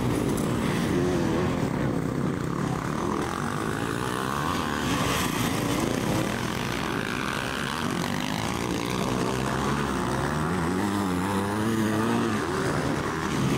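Motocross bike engines revving as several bikes race around a dirt track, the pitch rising and falling with the throttle. One engine climbs in pitch near the end.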